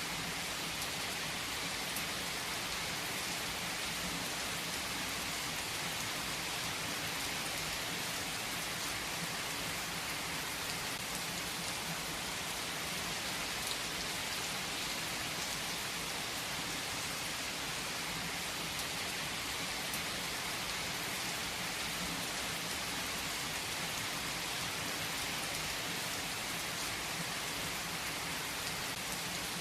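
Steady rain falling, an even hiss with scattered drop ticks, unchanging throughout.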